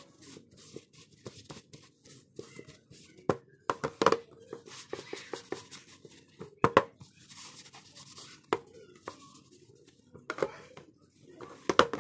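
Hands and small tools working on a broken Samsung smartphone: irregular clicks, taps and scrapes of plastic and metal parts being handled, with a sharper click every second or two.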